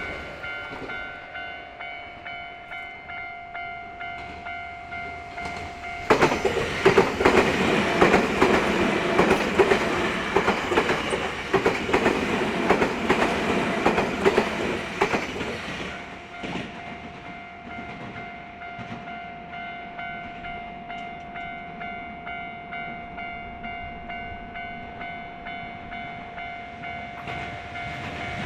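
Japanese level-crossing alarm bell ringing in an even repeating rhythm. A train passes over the crossing from about six seconds in to about sixteen seconds in, its wheels clattering over the rail joints, and the bell rings on after it has gone.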